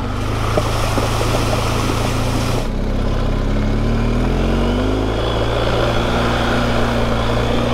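BMW GS motorcycle's boxer-twin engine running under way, with a steady rush of wind and tyre noise. About a third of the way in the engine note breaks briefly, then rises as the bike picks up speed.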